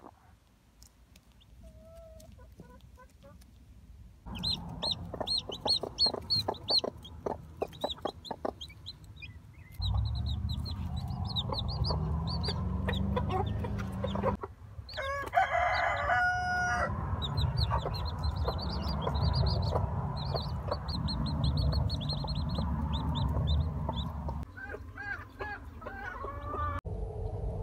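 Newly hatched chicks peeping in quick runs of short, high cheeps, with broody hens clucking low around them. About halfway through there is a longer, drawn-out call.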